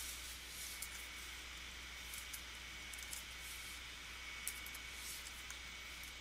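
Faint, scattered computer keyboard keystrokes and clicks over a steady background hiss with a low hum and a thin high tone.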